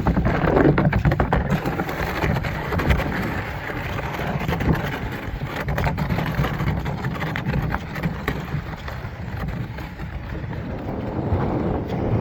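Wind rumbling on the microphone, with irregular scraping and knocking as a plastic boat bin lid is dragged up a rocky beach.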